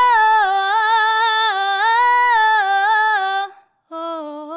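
A woman singing a slow melisma a cappella on a single vowel, holding each note and moving in small steps down and back up the scale. The line breaks off about three and a half seconds in and a lower phrase starts just after.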